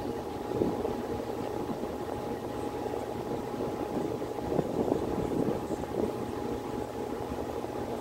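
Miller E2 series furnace running in heating mode: a steady rushing noise of moving air with a constant hum through it.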